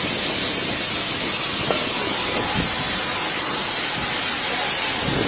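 A steady, loud hiss with no pauses, with a few faint knocks under it.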